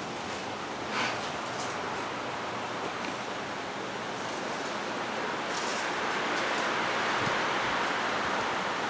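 Steady rushing air noise as a Hampton Bay Huntington II ceiling fan runs on low speed, mixed with gusty outdoor wind coming through an open garage door. It swells a little in the second half, with a faint click about a second in.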